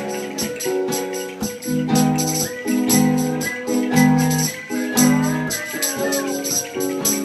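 Live acoustic band music: strummed acoustic guitar chords over a steady, quick percussion beat of about four hits a second. About two and a half seconds in, a higher, wavering melody line rises over the chords and fades out near the six-second mark.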